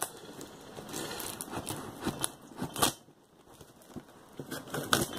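Cardboard shipping box being opened: packing tape and cardboard flaps crackling and tearing, with irregular sharp clicks and scrapes.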